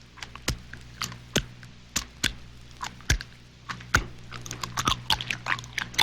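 Irregular sharp clicks and knocks, a few a second, over a low steady hum, with a denser cluster of crackling clicks near the end.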